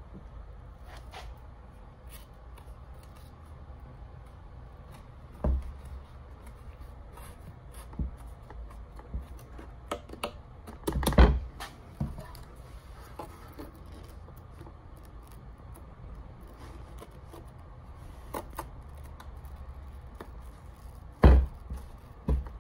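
Hands pressing and fitting hook-and-loop foam concave pads onto a Onewheel footpad's grip tape. Scattered handling knocks, taps and rustles, with louder knocks about halfway through and near the end.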